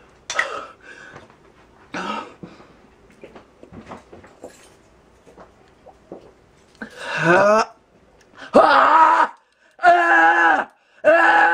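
A woman wailing in pain with her mouth burning from a habanero pepper: a string of loud, long cries, each under a second, starting about seven seconds in.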